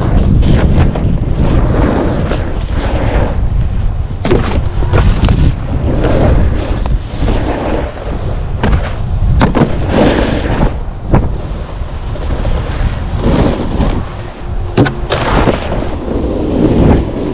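Wind rushing and buffeting over the microphone during a snowboard run: a loud low rumble that keeps swelling and easing, broken by many sharp knocks and clatters.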